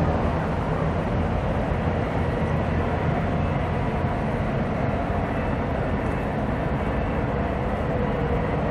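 Steady low rumble of distant vehicles.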